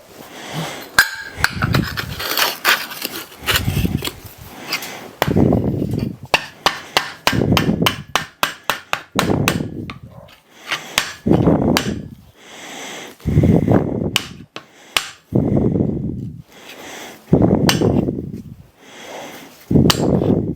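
A hammer striking a steel plate again and again at an uneven pace, with a quick run of lighter taps in the middle.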